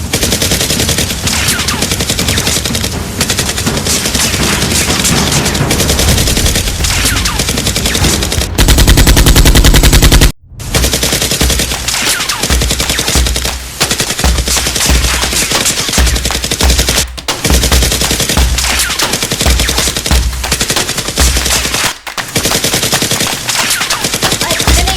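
Sustained rapid automatic gunfire, dubbed in as a sound effect for a Nerf blaster battle. About eight seconds in it swells into a loud, unbroken burst that cuts off abruptly, then the firing picks up again in long bursts.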